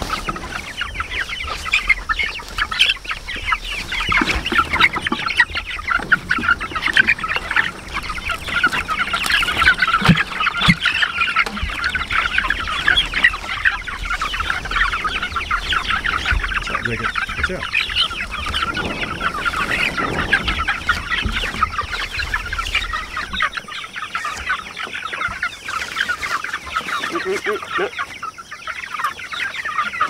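A flock of meat chickens (white broilers) in a pen, many birds clucking and calling at once in a steady, busy chatter.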